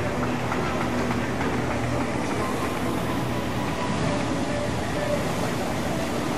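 Steady outdoor background noise, an even rumble with a faint low hum, and no distinct events.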